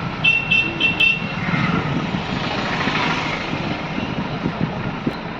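A vehicle passing, its steady rush of noise swelling about halfway through and then fading. Four quick high beeps sound near the start.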